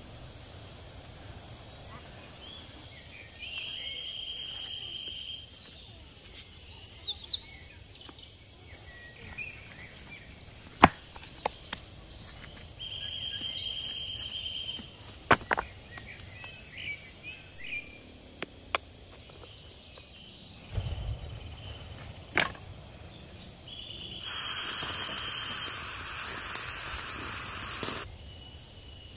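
A steady, high-pitched insect chorus, with a few sharp bird calls about 7 and 13 seconds in and scattered single clicks. A rushing hiss rises for a few seconds near the end.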